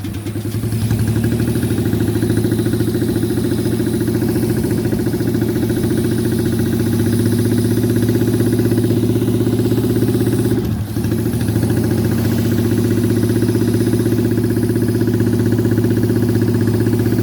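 A 1000cc car engine fitted in a custom motorcycle, running steadily at a constant speed with an even pulsing beat, dipping briefly about eleven seconds in before settling back to the same note.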